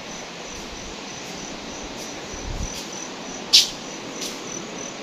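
Cricket chirping, short high pulses about four times a second over a steady hiss, with one sharp click about three and a half seconds in.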